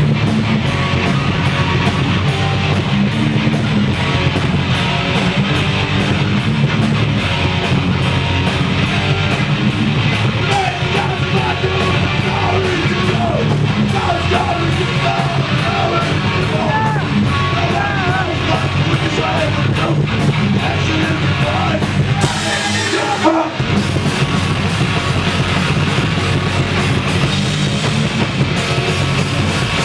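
A live rock band playing loud, heavy, distorted music on electric guitars and a drum kit. The bass end drops out for about a second roughly two-thirds of the way through, then the full band comes back in.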